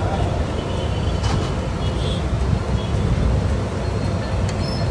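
A steady low rumble of background noise, with a few faint high tones and a couple of light clicks.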